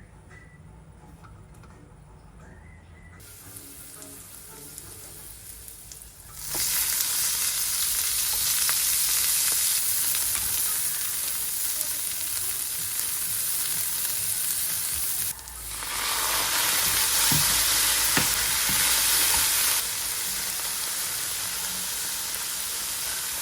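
Food frying in a hot pan with oil. A loud sizzle starts suddenly about six seconds in, drops for a moment around fifteen seconds, swells again, then eases a little near the end. A few light clicks sound over it.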